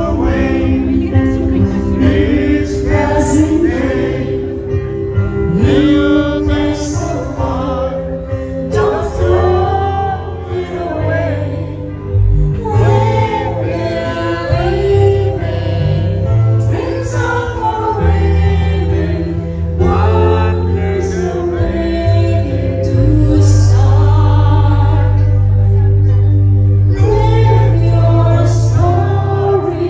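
Music: a sung song with a full band accompaniment and a strong bass line, which grows fuller about two-thirds of the way in.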